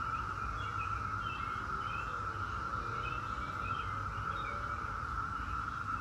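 Chorus of Brood X 17-year periodical cicadas: a steady, unbroken high hum. Short bird chirps sound over it throughout.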